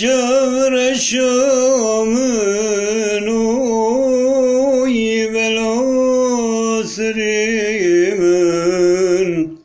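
A man singing one long unaccompanied phrase, his voice wavering and ornamented on held notes, with a brief break about seven seconds in. He stops just before the end.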